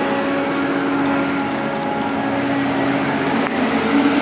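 Heavy diesel engine running steadily, its note rising slightly near the end.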